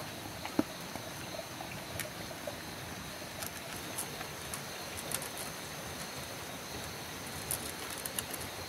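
A dog eating from a woven bamboo tray: scattered short clicks and crunches of chewing and of its muzzle nosing the food on the tray, a few more close together near the end, over a steady high-pitched background hum.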